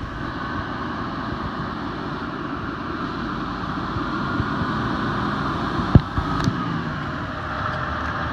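Diesel engine of a fire department aerial ladder truck running as the truck drives up, growing steadily louder as it approaches. A single sharp knock comes about six seconds in.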